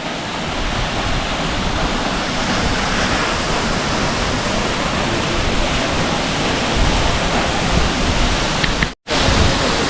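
Madhabkunda waterfall pouring down the rock face: a loud, steady rush of falling water, broken by a brief gap about nine seconds in.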